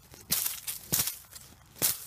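A hand digging tool striking into leaf litter and rooty soil: three short digging strokes, under a second apart.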